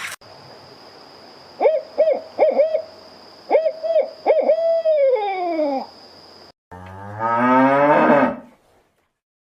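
A run of short hooting animal calls in quick bunches, the last one drawn out and falling in pitch. After a cut, a cow moos once, long and low.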